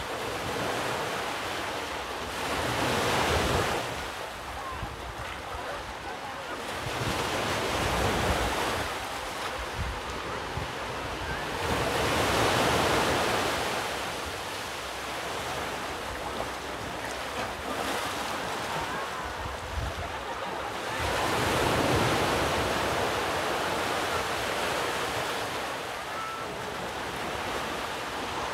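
Ocean surf washing on the shore, a steady rush that swells louder four times as waves come in, with wind buffeting the microphone.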